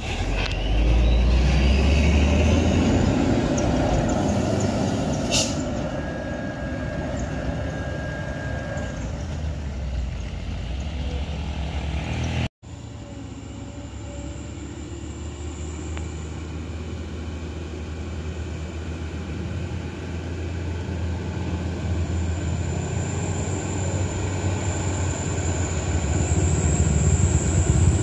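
Diesel engine of a Hino truck running close by as it passes, loudest in the first few seconds and then easing away. After a sudden break, another truck's diesel engine grows louder as it approaches near the end.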